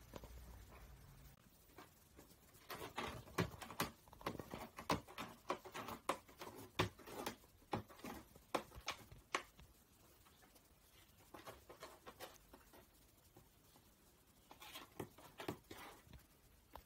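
A cat scratching at a cardboard box with its claws: quick scratchy strokes on the cardboard in a busy run through the first half, then shorter bouts later on.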